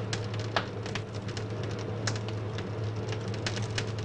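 Restaurant kitchen clatter: scattered clinks and knocks of utensils and dishes over a steady low hum.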